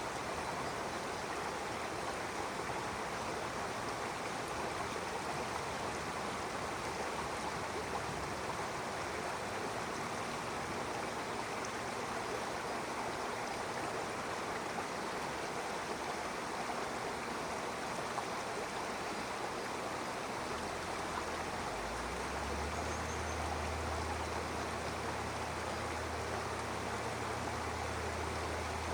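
Stream water rushing and burbling steadily. A low steady hum joins in about two-thirds of the way through.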